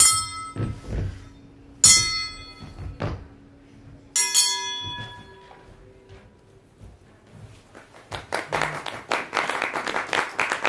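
A metal pan struck three times, each strike ringing on for a moment, among a few dull thuds. About eight seconds in, applause starts up.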